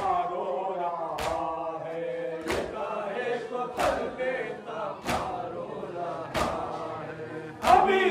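Men chanting a Shia nauha lament in unison, with their collective matam chest-beating landing together as a sharp slap about every 1.3 seconds, seven strokes in all.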